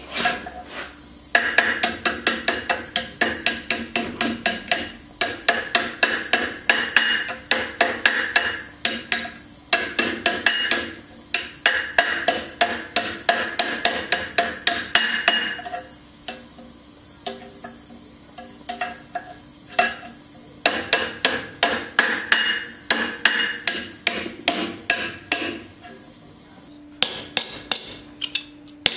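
Hand hammer striking a red-hot piece of steel held in tongs on the horn of an anvil, in quick runs of about three blows a second broken by short pauses, the anvil ringing with each blow. Near the end come sharper, brighter strikes on cold sheet steel over a steel block.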